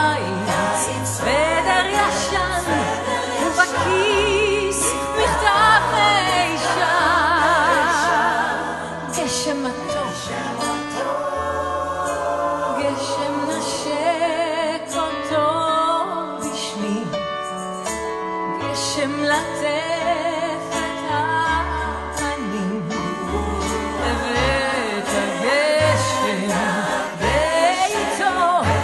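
A mixed choir singing a Hebrew song together with a female soloist, accompanied by piano.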